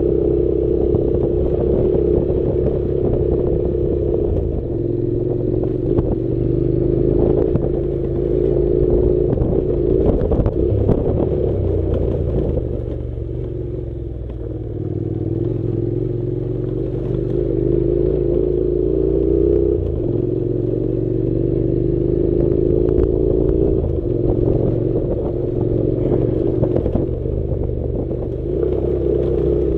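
Honda NC700's parallel-twin engine running under way off-road, its pitch climbing slowly and dropping back several times, with scattered knocks and clatter from the rough track.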